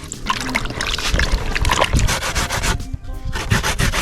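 Potatoes being grated by hand on a grater: quick rhythmic scraping strokes, about four or five a second, with a short pause about three seconds in. Music plays underneath.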